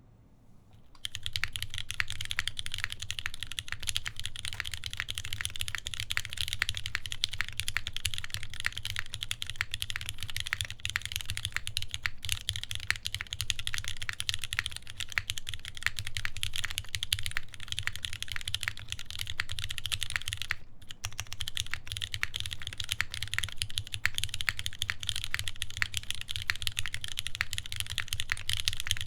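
Continuous fast typing on a mechanical keyboard with lubed vintage Cherry MX Black linear switches, on an aluminium plate with GMK keycaps. Dense keystroke clacks start about a second in, with a brief pause about two-thirds of the way through.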